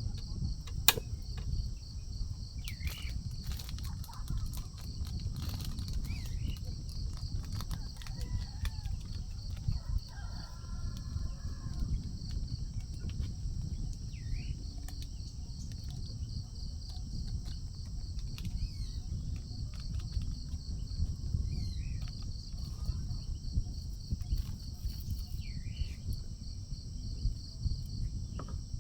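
Insects trilling steadily in a high, fast-pulsing drone, with short rising bird chirps every few seconds over a low steady rumble. A few sharp clicks come in the first seconds.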